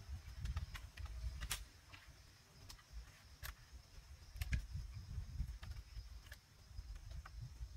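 Scattered sharp clicks and knocks of bamboo poles being bent and lashed into a house frame, over an uneven low rumble.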